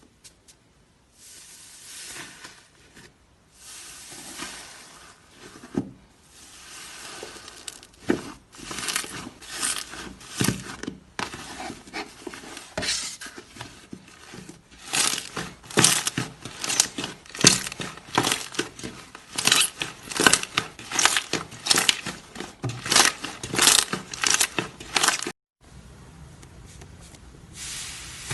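Slime being squeezed and stretched by hand: a soft sticky squishing at first, then a quick run of sharp crackling pops, several a second, that cuts off suddenly near the end.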